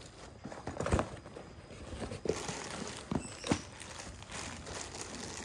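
Goods being rummaged through in a cardboard shipping box: a few soft knocks of small cardboard boxes and packed parts, with the rustle and crinkle of plastic bags.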